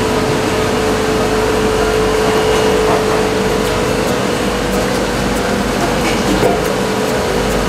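Handheld butane kitchen blow torch burning with a steady hiss, its flame browning a meringue-style nougat topping. A steady hum runs underneath.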